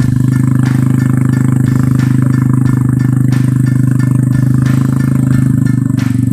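Small motorcycle engine labouring at steady revs while climbing a steep hill under load, with a light rattle from the bike over the rough track.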